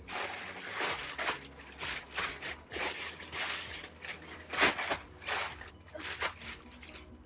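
Greenhouse parts being handled and fitted together: irregular rustling and scraping with scattered clicks, one sharp click about four and a half seconds in.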